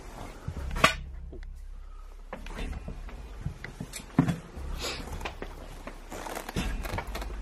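Footsteps and handheld-camera handling noise, with a sharp knock about a second in and another around four seconds.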